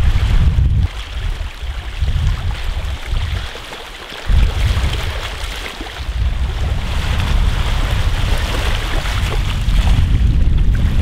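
Wind buffeting the microphone in gusts over small waves washing onto a pebble beach. The rumble drops off for a moment just before the middle and comes back suddenly.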